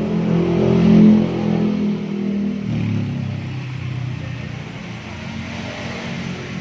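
A motor running with a pitched hum, loudest about a second in, its pitch dropping lower a little under three seconds in.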